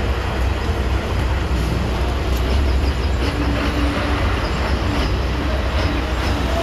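Diesel bus engine running with a steady low rumble, over the general din of a busy bus station.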